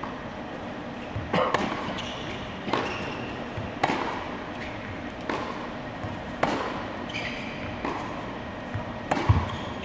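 Tennis ball struck back and forth in a practice rally, a sharp pop of racket on ball about every second and a quarter, loud strikes close by alternating with fainter ones from across the court. The loudest hit comes near the end.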